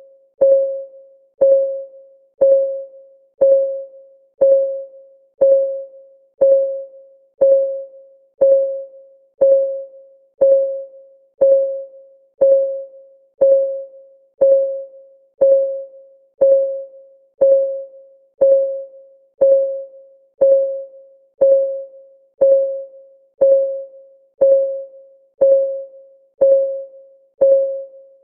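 Clock ticking sound for a countdown timer: sharp ticks at exactly one per second, each with a short ringing tone that dies away quickly.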